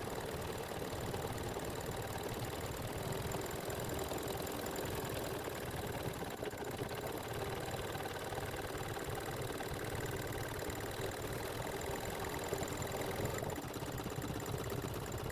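Embroidery machine running steadily, stitching a satin-stitch edge.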